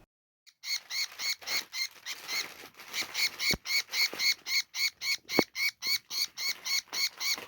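A baby bird calling over and over in a fast, even run of short shrill chirps, about four a second, starting shortly after a brief silence.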